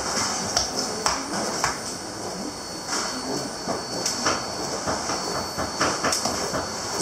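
Pizza dough being pressed and stretched by hand on a floured counter: irregular soft taps and knocks over a steady background hiss with a faint high whine.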